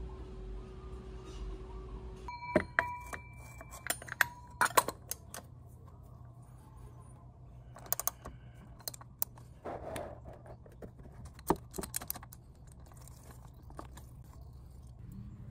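Hand tools clicking and clinking: a cap-type oil filter wrench and ratchet handle being fitted to the scooter's spin-on oil filter and worked to loosen it. Irregular sharp clicks and knocks, with a brief metallic ring about two and a half seconds in.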